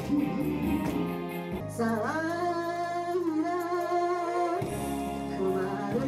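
A woman singing into a microphone over a backing music track. She holds one long wavering note for about three seconds in the middle.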